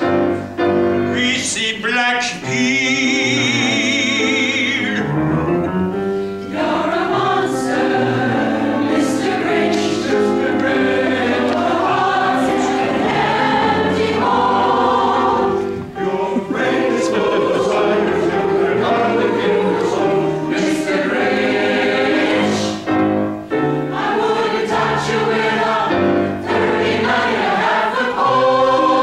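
Mixed chorus of men's and women's voices singing together, with short breaks between phrases.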